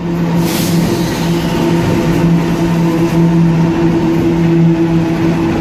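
Diesel-electric freight locomotives passing close by, their engines giving a steady drone.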